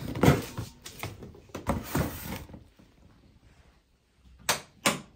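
A cardboard box holding a black metal wire rack being handled: several scraping knocks and rustles over the first two seconds or so, then two sharp clicks about half a second apart near the end.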